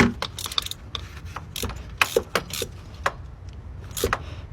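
Irregular metallic clicks and knocks of hand tools on the engine, in small clusters, just after the compressor bolts are tightened.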